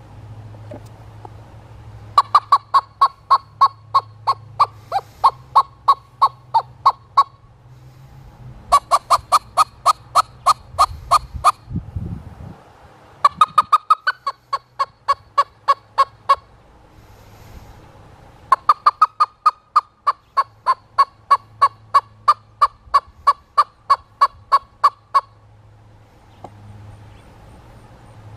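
Homemade squirrel call sounding an imitation of a squirrel's barking: four runs of sharp, evenly spaced barks, about three a second, each run lasting several seconds.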